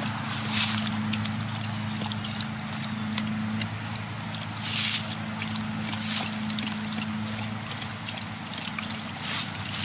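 Dog lapping and slurping water from a puddle in the grass, in irregular wet bursts, with rustling of grass and leaves around her muzzle.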